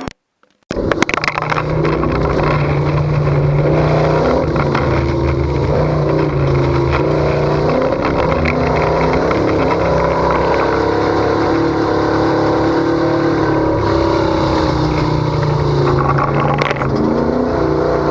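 Desert race truck's engine running hard at speed, its pitch rising and falling with throttle over a steady din of driving noise, with a few sharp knocks near the start and near the end. The sound cuts in abruptly under a second in.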